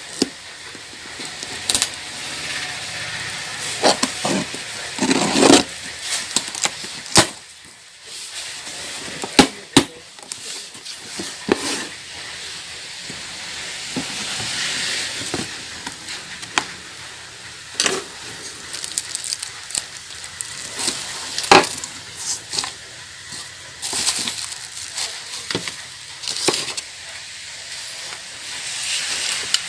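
Ceiling fan's cardboard box and packing being opened by hand: crackling rustle of cardboard and packaging with scattered sharp clicks and knocks.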